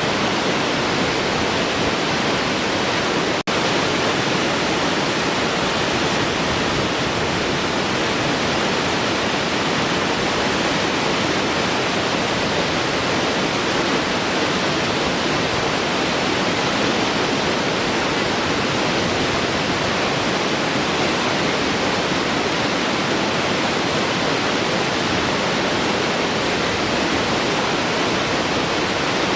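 Large waterfall: a steady, dense rush of falling water, with a split-second dropout about three and a half seconds in.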